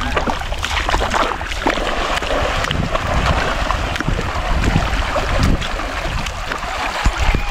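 Muddy water splashing and sloshing as a person wades through a shallow pool and gropes in it with his hands, in irregular bursts, over a steady low rumble of wind on the microphone.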